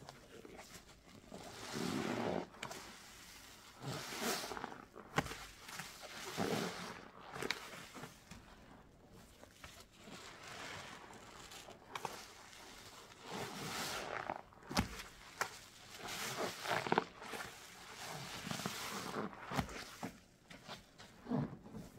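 Wet sponge full of thick soapy lather being squeezed and squished by hand, making a wet squelching that comes in swells every couple of seconds, with a few sharp clicks.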